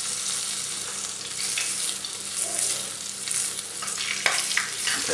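Pork loin sizzling in a hot frying pan as it is turned to brown and crisp the skin. A few light knocks come near the end.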